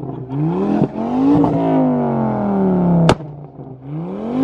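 Modified car's exhaust revved hard at a standstill: the engine note climbs and peaks, then falls away with a sharp crack about three seconds in, and climbs again near the end.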